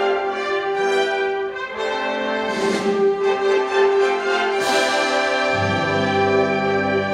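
A concert wind band playing sustained brass chords over one long held note. There are two bright crashes in the middle, and low notes come in near the end.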